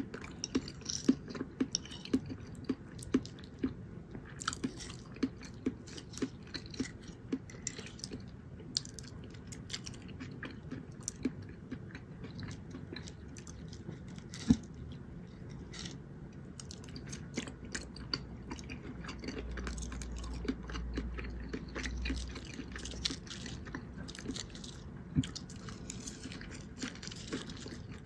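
Close-miked chewing and wet mouth sounds of someone eating soft food, chicken in gravy with spinach and baked potato, with sharp clicks about twice a second and one louder click about halfway through.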